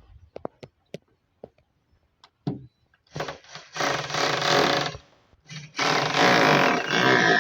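Small metal clicks as bolts are fitted to an adjustable chimney-pipe bracket. Then a power drill-driver runs with a steady whine, twice: about three seconds in for about two seconds, and again from about six seconds on.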